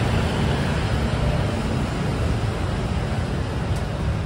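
Steady street-market ambience: a low rumble of city traffic under an even hiss of crowd and stall noise.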